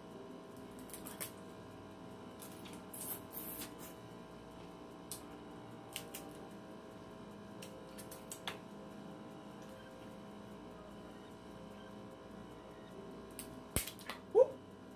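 Snow crab leg shells cracked and pulled apart by hand, with scattered sharp cracks and clicks and the soft squish of meat being drawn out, over a steady electrical hum. A short rising squeak near the end is the loudest moment.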